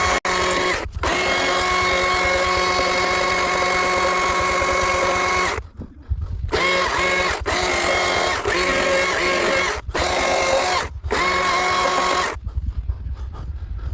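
Chainsaw cutting wood, running steadily for about five seconds and then in a series of short bursts of about a second each, the pitch dipping as the chain bites. The carver thinks the chain is getting blunt.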